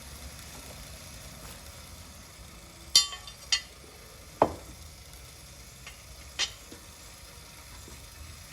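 A few sharp metallic clinks over a faint steady hiss: two close together about three seconds in, the first the loudest, then a duller knock and one more clink a couple of seconds later.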